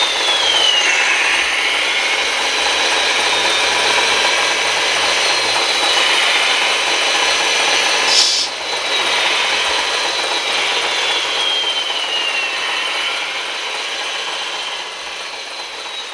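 Gear whine from the electric drive of a radio-controlled construction model working, its pitch sliding down and back up as the throttle changes, with a sharp click about eight seconds in. The sound fades away near the end.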